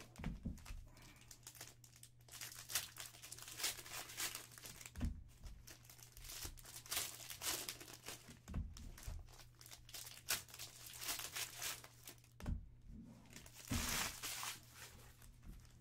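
Foil wrappers of Panini Phoenix football card packs crinkling and tearing in the hands as the packs are ripped open, with a few soft thumps.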